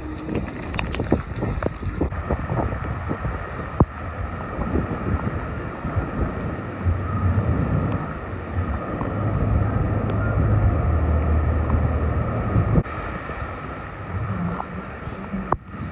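Strong storm wind buffeting the microphone over the wash of heavy surf breaking on the beach. The low wind rumble swells in the middle and eases near the end.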